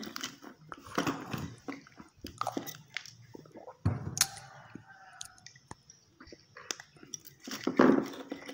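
Close handling noise: irregular small clicks, scrapes and rustles as fingers work an aluminium heatsink plate fitted with MOSFETs and resistors, bending a component lead.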